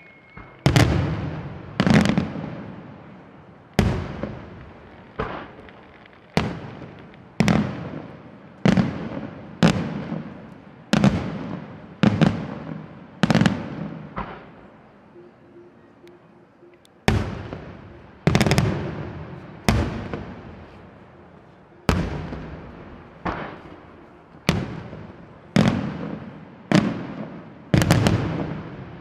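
Aerial firework shells bursting overhead in steady succession, about one bang a second. Each sharp report is followed by a rolling echo that dies away. There is a pause of a few seconds about halfway through before the bursts start again.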